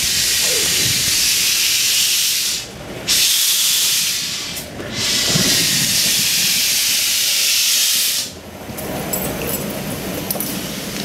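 Steam hissing loudly from a Peckett 0-4-0 industrial tank locomotive as it moves slowly past. There are three long hisses with short breaks between them, and it eases off after about eight seconds.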